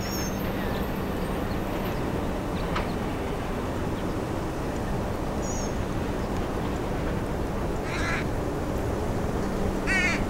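A bird gives two harsh calls, about two seconds apart, near the end, over a steady noisy outdoor background with a faint low hum. Two brief high chirps come earlier.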